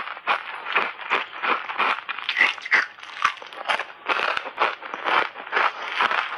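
Ice chips coated in matcha and milk powder crunching as they are chewed, about three crunches a second.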